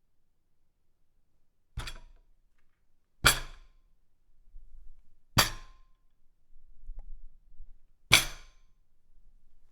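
A dinner table set with plates and cutlery being hit four times, each bang making the dishes and cutlery jump and clatter briefly. The hits come irregularly, about one and a half to nearly three seconds apart, and after the third something rings clearly for a moment.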